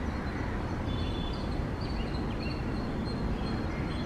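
A steady low rumble with wind buffeting the microphone, and small birds chirping in short, high calls throughout.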